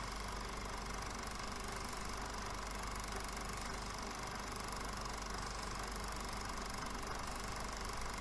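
Film projector running with a steady, even mechanical noise.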